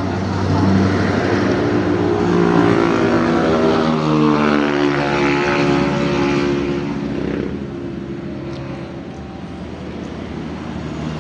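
Engine of a passing vehicle or aircraft, a pitched drone that grows louder, shifts in pitch as it passes about halfway through, then fades.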